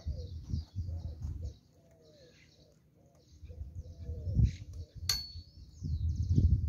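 Small birds chirping with short falling calls and a dove cooing, over gusts of wind rumbling on the microphone. A single sharp click comes about five seconds in.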